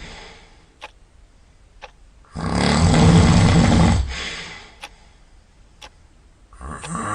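Loud snoring from a sleeper in rhythmic cycles. The end of one snore fades out at the start, a full snore of nearly two seconds comes about two seconds in, and the next begins near the end. Faint ticks sound about once a second in the quiet gaps between snores.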